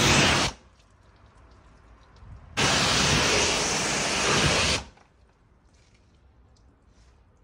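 Pressure-washer jet spraying water onto a car's wet bodywork in two bursts: a short one at the start and a longer one of about two seconds a few seconds in, each cutting in and out abruptly.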